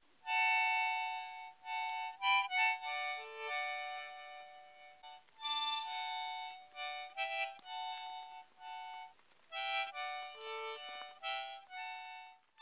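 Solo harmonica playing a tune in held notes, often two at a time, changing about once or twice a second.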